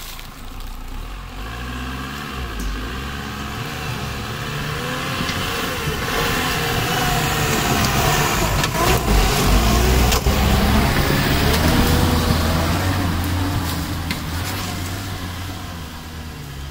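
Engine of a custom-built LuAZ off-road vehicle revving up and down as it works over rough ground. It grows louder to a peak about ten seconds in, then fades as it pulls away.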